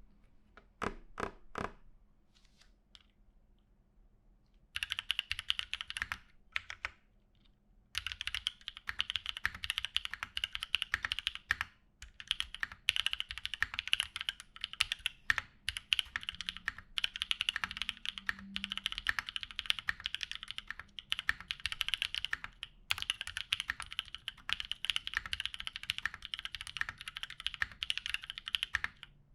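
Typing on a custom Equalz One mechanical keyboard with lubed Drop Holy Panda tactile switches, a polycarbonate plate and GMK keycaps. A few single key strikes come in the first two seconds, then a short burst of typing about five seconds in, and steady, fast typing from about eight seconds on.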